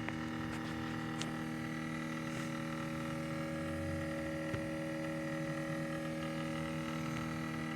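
Steady electrical hum of several held tones coming from a Scion tC while the car is switched off.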